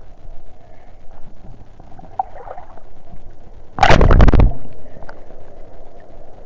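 Sea water sloshing around a camera held at the surface, with one loud, short splash about four seconds in as a wave washes over the lens.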